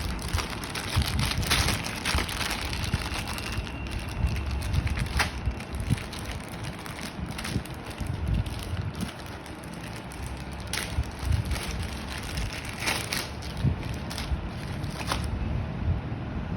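Packaging being handled: irregular crinkling and rustling with scattered sharp clicks over a low rumble.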